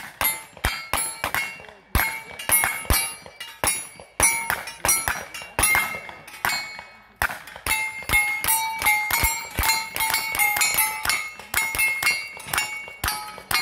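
Two cowboy action shooters firing in a shoot-off: dozens of gunshots in quick, irregular succession as they race each other. Many shots are followed by the ring of struck steel targets.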